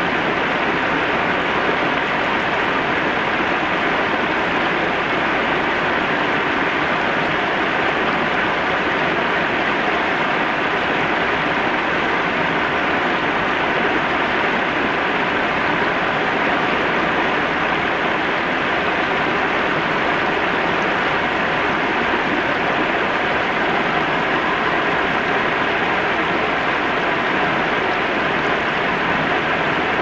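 River water spilling over a low weir and running through shallow rapids: a steady, unbroken rush.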